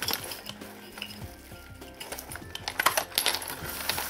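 Old glass Christmas tree ornaments clinking and knocking against each other as hands rummage through them in a plastic bag, with the bag rustling. The clinks come in a quick flurry about three seconds in.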